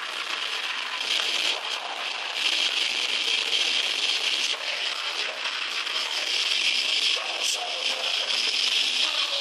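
Heavy metal band playing live, guitars, bass, drums and vocals, heard as a continuous harsh, distorted wash with no bass: the recording is overloaded by the volume.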